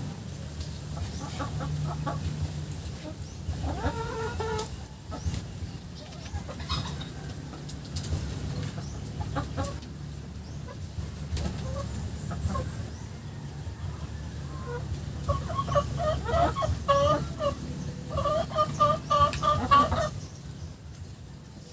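A flock of chickens clucking, with short repeated calls that come in quick, louder bursts about two-thirds of the way through and again near the end. A steady low rumble runs underneath.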